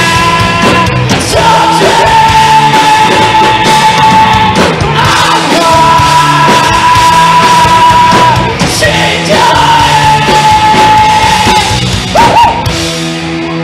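Live rock band playing loudly: electric guitars, bass and drums with a singer, with long held high notes over the beat. The band thins out just before the end.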